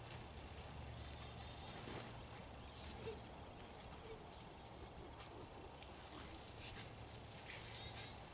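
Faint outdoor ambience: a low steady rumble, with a few faint high chirps about half a second in and again near the end.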